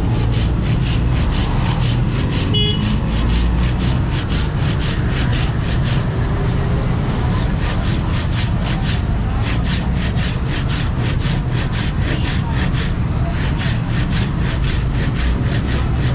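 Steel blade being worked by hand with rapid back-and-forth abrasive strokes, about four a second, with two brief pauses, over a steady low hum.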